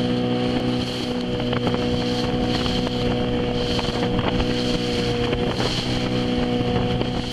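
A boat's motor running steadily at cruising speed, under the rush of water along the hull and wind across the microphone as the boat crosses choppy sea.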